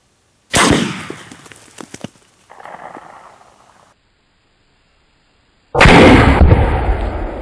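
Two rifle shots from a Remington 700 bolt-action in .308 Winchester, about five seconds apart. Each is a sharp crack that dies away in a trailing echo. The second is louder, with a heavier, longer rumble.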